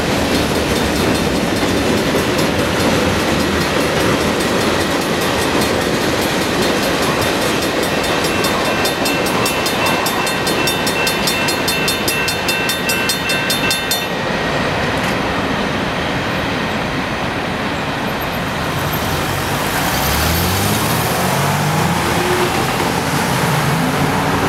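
Freight train wagons rolling through a grade crossing, wheels clattering on the rails, with the crossing bell ringing rapidly. The train noise fades and the bell stops about halfway through. Near the end, road cars accelerate across the tracks.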